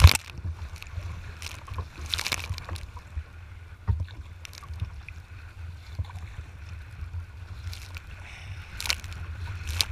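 Strong wind rumbling on the microphone while a kayak works through choppy water, with a few sudden splashes of spray and paddle strokes, the loudest right at the start and others about two, four and nine seconds in.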